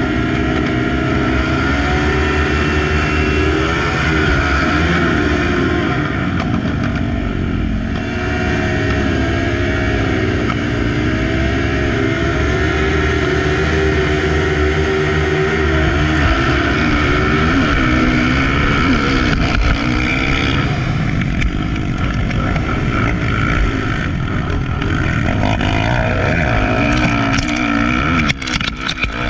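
Several motocross bikes' engines revving together at the start gate, the pitch rising and falling as the riders hold the throttle, then the bikes accelerating away down the track near the end.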